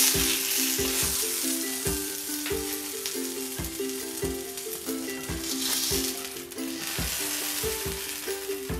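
Sardines frying in olive oil on a hot iron griddle, a steady sizzle, under background music with a steady beat.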